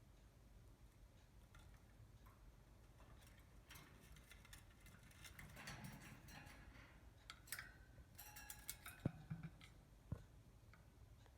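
Scattered light clicks and taps of a budgerigar's beak on the camera, growing busier past the middle with two sharper taps near the end, over near-silent room tone.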